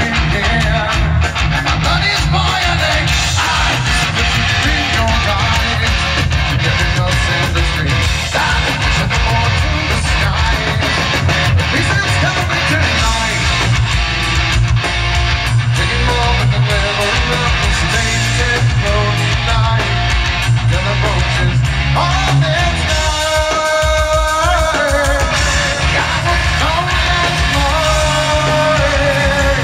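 Heavy metal band playing live, heard from the audience: loud distorted electric guitars, bass and drums under a sung vocal line. About three-quarters of the way through, the drums and bass drop out for a couple of seconds while a held, wavering melody carries on, then the full band comes back in.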